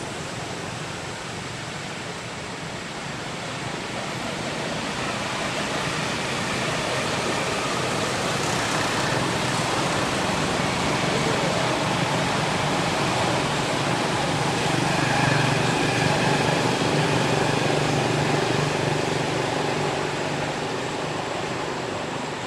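Steady outdoor background noise, with a motor vehicle's engine hum growing louder towards the middle and easing off near the end.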